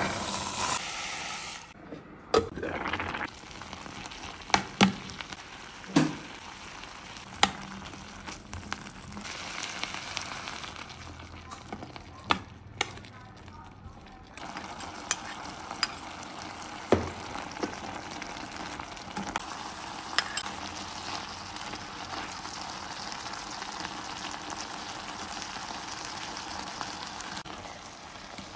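Corn kernels sizzling as they stir-fry in a stainless steel pot, a spoon knocking against the pot now and then. A loud rush of sizzle as the kernels are tipped in at the start; the frying hiss grows steadier and stronger from about halfway through.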